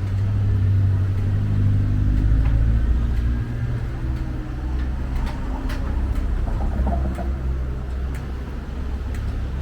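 Strong wind buffeting the microphone as a heavy low rumble, mixed with city street traffic and a vehicle engine running nearby.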